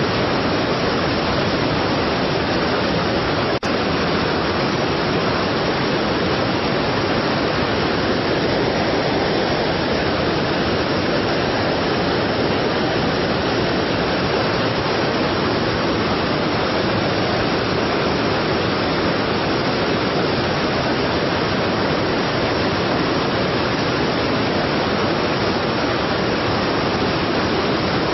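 Strong waterfall: a steady, dense rush of falling water, with a split-second dropout about three and a half seconds in.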